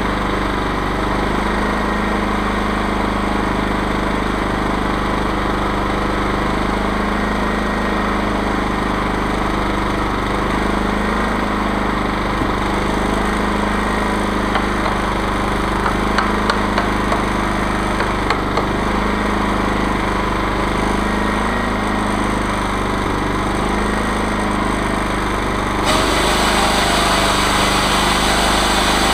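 Chainsaw mill's engine running at a steady speed, with a few light ticks around the middle. Near the end the sound turns brighter and a little louder.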